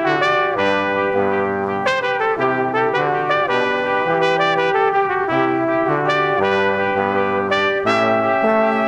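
Background music led by brass instruments, with several held notes sounding together in chords that change about every second.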